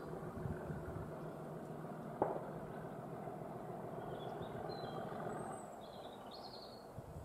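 Small birds chirping in short calls over a steady low rumble of background noise that fades away about six seconds in, with one sharp click a little after two seconds.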